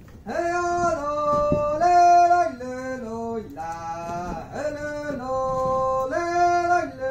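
One voice singing a traditional Sami joik with no instrument heard: long held notes that step up and down in pitch, broken by short pauses for breath.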